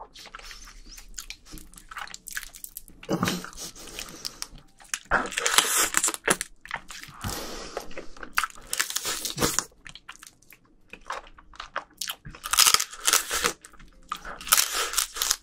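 Close-miked eating sounds: wet biting and crunching into spicy marinated raw crab (yangnyeom-gejang), coming in irregular bursts.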